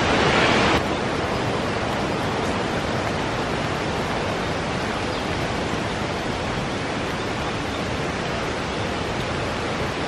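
Steady, even rushing of water, a little louder in the first second and then level.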